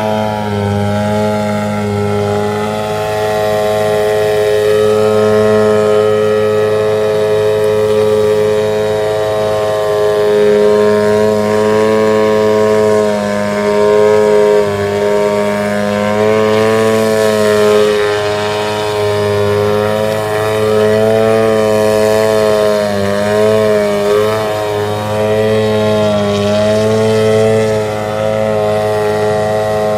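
Desert Aircraft DA-50R single-cylinder two-stroke gas engine with a Pitts-style muffler, driving a 22x8 propeller on a large RC 3D plane held in a hover. The engine note is steady with small rises and dips in pitch as the throttle is worked, dipping briefly a few times.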